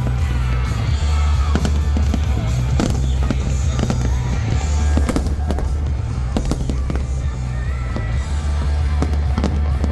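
Fireworks bursting in quick, irregular succession, mixed with music that has a heavy, steady bass.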